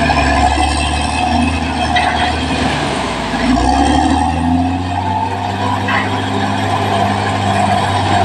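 Caterpillar D6R XL bulldozer's diesel engine running steadily while working, with a brief dip and change in the engine note about three and a half seconds in.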